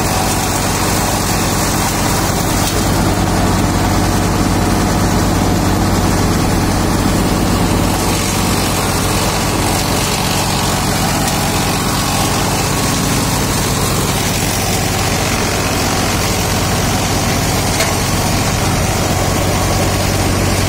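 Wood-cutting machine shredding kikar (acacia) branches: a steady engine-like drone under a continuous rushing noise, running without a break as the branches are fed in and chopped into chips that are blown out onto a heap.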